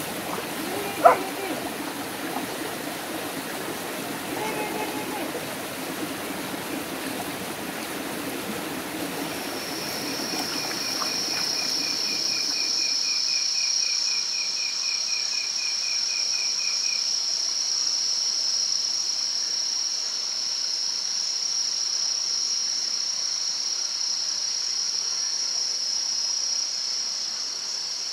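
A small forest stream running over rocks, fading out about halfway through. A steady, high-pitched chorus of night insects takes over, with a rapid pulsing trill for several seconds as it begins.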